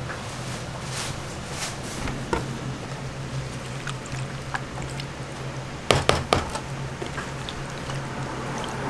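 Wet squishing and sloshing of milky batter as gloved hands work dough croquettes in a steel bowl, over a steady low hum. A quick cluster of sharp clicks or knocks comes about six seconds in.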